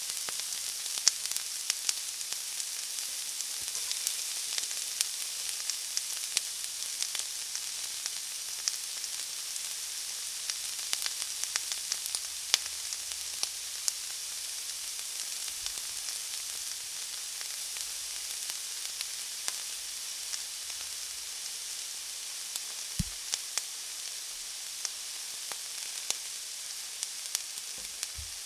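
Food frying in a pan: a steady high sizzle with many small crackling pops throughout and a few louder pops.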